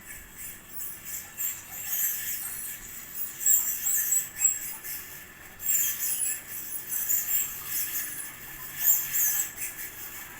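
GMC BM-503 ceiling fan running with a worn motor bearing, giving high, irregular squeaks and chirps over a faint steady whine. The squeaking is the sign of a bearing going bad after nine years of use.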